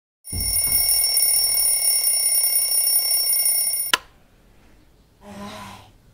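An alarm rings steadily at several fixed high pitches for about three and a half seconds, then is switched off with a sharp click as a hand presses the small pink device. A short, quieter hum follows about a second later.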